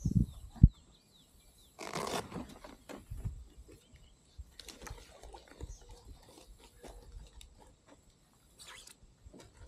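A farm animal on the riverbank calling a few times, a harsh, unpleasant cry that sounds like an animal in some anguish. Two low thumps come right at the start.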